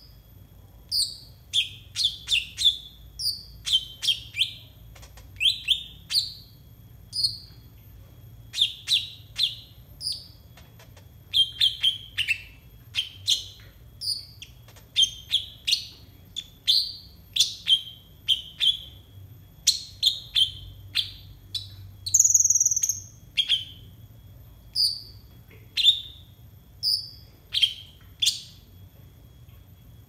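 Kolibri ninja (konin) sunbird chirping: a long series of short, sharp, high notes about one to two a second, with a louder, higher burst of trilling about two-thirds of the way through.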